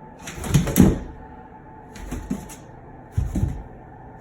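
A young Cane Corso worrying a kitchen towel he won't give back, making short rough scuffling bursts about a second apart, the first the loudest.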